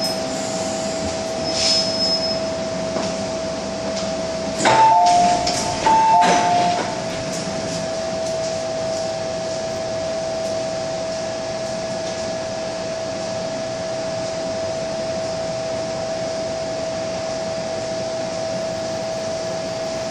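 MTR M-Train coming to a stop with a brief high squeal of its brakes. About five seconds in, a two-tone chime sounds twice, high then low, with a clatter as the doors slide open. After that the train gives a steady hum as it stands at the platform.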